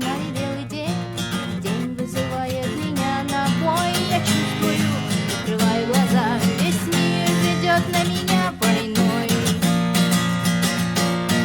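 Acoustic guitar strummed in steady chords, with a melody line above it that bends and wavers in pitch.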